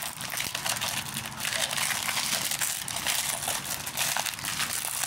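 Plastic shrink-wrap crinkling and crackling as it is peeled and torn off a DVD case: a continuous rustle full of small crackles.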